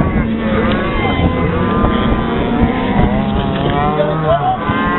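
An engine running steadily, with calves bawling and people's voices over it.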